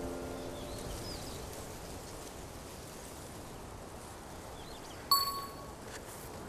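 Background music fades out, leaving a faint steady outdoor hiss. About five seconds in, a single bright bell-like ding rings and dies away within a second: an edited-in sound effect cueing a sudden idea.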